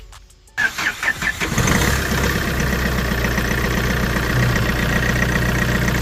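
Diesel engine of a Tata Safari Dicor cranked by its starter motor for about a second and catching quickly, then idling steadily. The repaired starter solenoid now engages the starter properly instead of only clicking.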